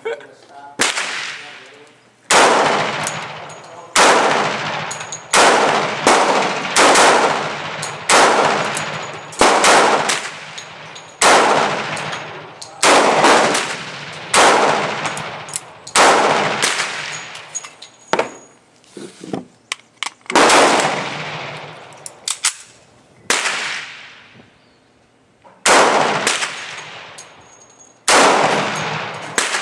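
Handgun fired shot by shot at an uneven pace, about one shot every one to two seconds with a few short pauses. Each crack is followed by a fading echo.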